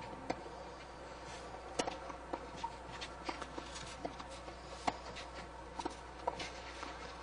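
Faint sharp knocks of tennis balls being served and bouncing, over a steady low hum. The loudest strike comes about two seconds in and another near five seconds.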